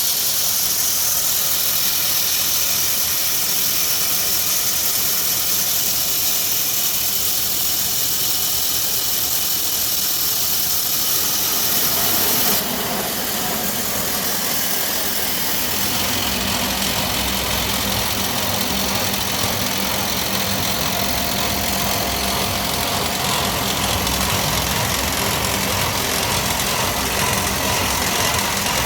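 Wood pellet mill running with a steady machine hum. For about the first twelve seconds a strong high hiss sits over it. Then the hiss drops and a deeper motor hum comes up, heavier from about sixteen seconds in.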